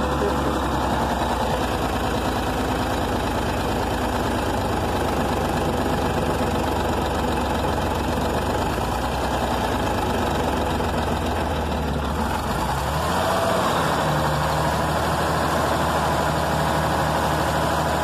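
A 6V92 Detroit Diesel two-stroke V6 running steadily at idle, on five cylinders with one sticking injector disabled. About 13 seconds in its speed picks up slightly and holds there.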